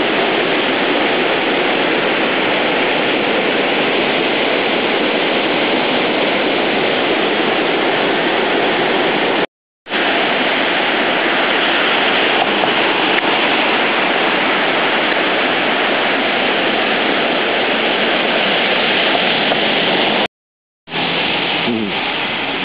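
High floodwater of the swollen Neckar rushing past in a loud, steady roar, broken twice by a brief drop to silence.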